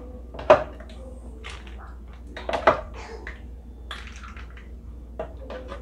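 A ladle knocking and clinking against a plastic measuring jug as juice is scooped out, and juice splashing as it is poured through a plastic funnel into a popsicle bag. Short, scattered knocks, the sharpest about half a second in and two close together about two and a half seconds in.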